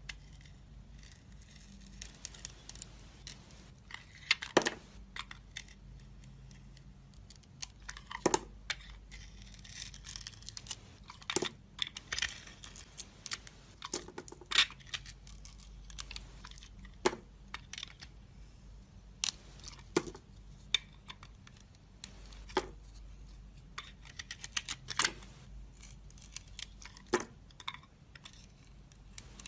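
A bar of soap being cut into cubes: a string of sharp, crisp cracks about one every one to three seconds as the blade snaps through, with softer crumbly scraping between them.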